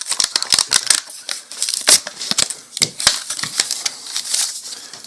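Plastic and cardboard Pez packaging being handled and pulled open: a rapid run of sharp clicks and crackles in the first second, then scattered single snaps.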